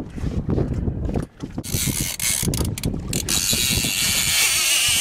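Fishing reel's drag buzzing as a hooked lemon shark runs and pulls line off. The buzz starts about a second and a half in and holds steady, over low buffeting and knocks in the first half.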